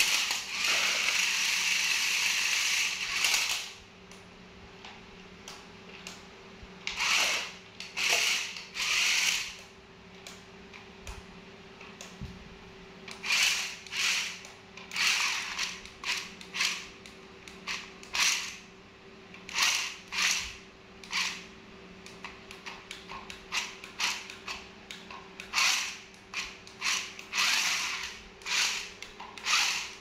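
Electric motors and plastic gearboxes of a toy stunt RC car with mecanum-style wheels whirring. The whirr runs continuously for the first few seconds, then comes in many short bursts as the car is driven in spurts.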